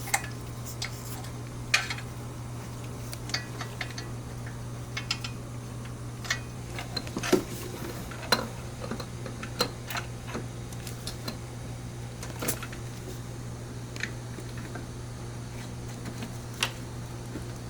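Metal parts clinking and knocking irregularly as a turbocharger is worked into place in an engine bay, over a steady low hum.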